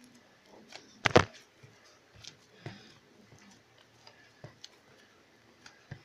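Scattered light clicks and knocks, like objects being handled, with the loudest a quick rattling cluster about a second in and a sharper knock near the end.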